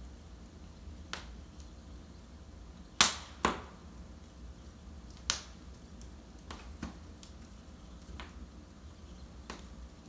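Wood fire in a fireplace crackling: sharp pops come irregularly, about one a second, and the loudest, about three seconds in, is followed by another half a second later. A low steady rumble runs under them.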